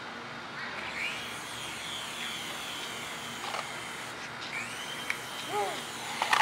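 Air Hogs toy remote-control helicopter's small electric rotor motor whining, its pitch rising as it spins up about a second in and again around four and a half seconds in.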